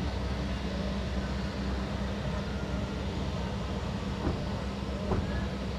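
Airbus A320-251N's turbofan engines running at taxi power: a steady low rumble with a hiss over it as the airliner rolls along the taxiway.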